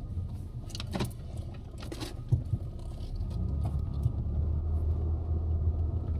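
Car engine and road rumble as the car moves at low speed, with a few light rattles and a sharp knock a little after two seconds in.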